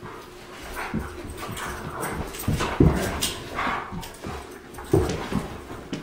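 A New Guinea singing dog making short, irregular vocal sounds in quick spurts. The sharpest sounds come near the middle and about five seconds in.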